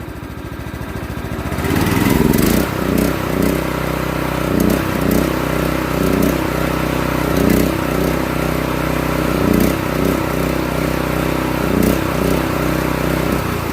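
Subaru small gasoline engine on a sawmill surging at idle. About two seconds in it picks up from a low idle, then its speed rises and falls in repeated swells instead of holding steady, and it settles back near the end. The owner takes the surging for a fault that needs the carburetor cleaned or tuned, or the throttle cables adjusted.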